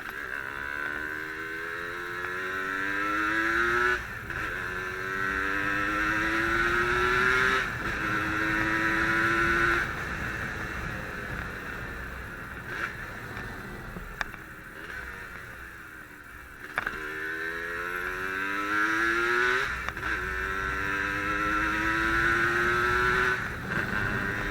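Yamaha RD135 two-stroke single-cylinder motorcycle engine accelerating hard, revs climbing and dropping back at each gear change. It backs off about ten seconds in, then pulls up through the gears again.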